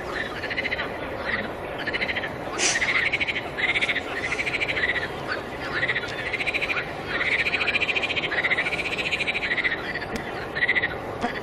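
Frogs calling in a chorus: repeated pulsed croaks, some short and some drawn out over a second, over a steady rushing background.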